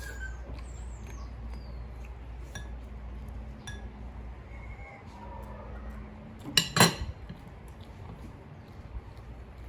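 Small clicks and clinks of dishes and eating utensils during a meal, with a louder double clatter of dishware about two-thirds of the way through, over a steady low hum.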